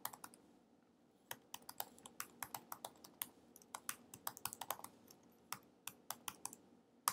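Typing on a computer keyboard: a quick run of separate key clicks, a pause of about a second near the start, then steady typing again with a few short breaks.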